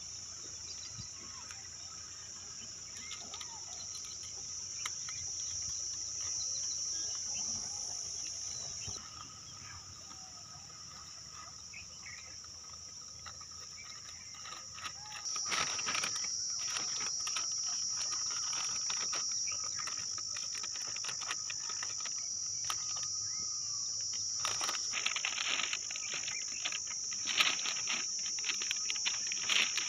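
Insects droning in a steady, high-pitched chorus, with irregular tapping and patter joining from about halfway in and growing busier near the end.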